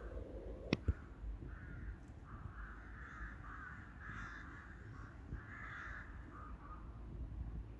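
Crows cawing repeatedly, a run of harsh caws in quick succession over several seconds, with one sharp click just under a second in.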